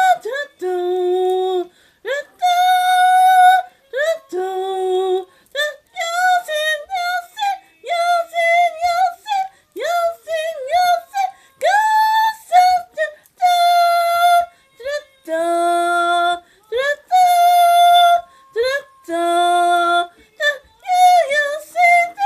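A high wordless voice singing a string of held calls, most on one high note and some leaping an octave lower, with short sliding cries between them, much like yodeling.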